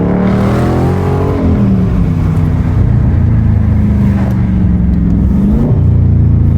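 A 2021 Dodge Charger Scat Pack's 6.4-litre 392 HEMI V8, with a mid-muffler delete, driving. The engine revs rise in the first second, drop back to a low steady rumble, then climb again near the end.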